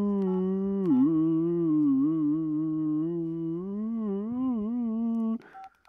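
A person humming one long low note that dips in pitch now and then and wobbles near the end, breaking off a little after five seconds. Short two-tone keypad beeps from a Samsung SCH-U320 flip phone come just after the hum stops.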